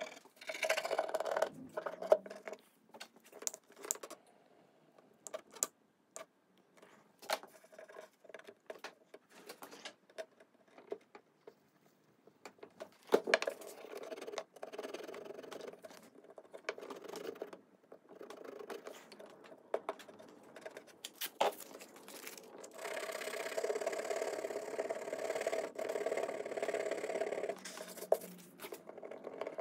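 Hand rubbing and sanding on a wooden veneered top, with scattered knocks and taps of the block against the wood. Near the end it turns into a steadier stretch of continuous rubbing.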